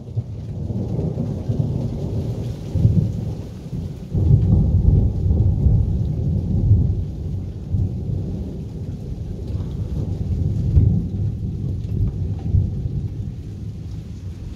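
A long roll of thunder rumbling deep and low. It swells with sharp cracks about three and four seconds in, rumbles on with another peak near the end, then slowly dies away.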